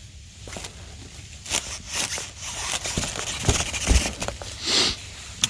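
A frozen zipper on a fabric deer blind being tugged and worked, the ice-stiff fabric crackling and rustling. There are scattered sharp clicks and scrapes, and a louder swish a little before the end.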